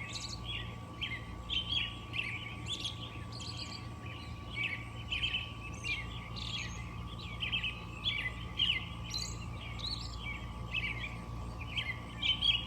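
Dawn chorus: several birds chirping and singing at once, a continuous stream of short overlapping chirps and trills. A steady faint hum lies underneath.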